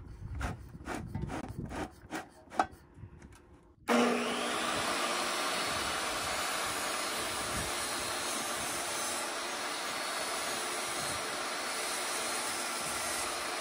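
DeWalt jobsite table saw switched on about four seconds in and running steadily while it rips a strip of vinyl plank flooring. Before it, a few knocks and clicks of handling.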